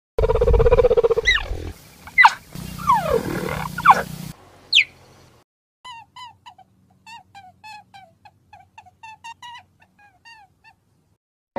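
Cheetah chirping: after a louder low sound at the start, a few sharp, high chirps sweep steeply in pitch over the first four seconds. Then a faint, quick run of short repeated chirps follows, several a second.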